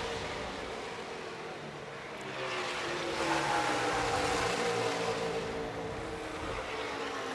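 Racing V8 engines passing at speed on the track, several cars at once. Their pitch rises and falls as they go by, and the sound swells loudest a few seconds in.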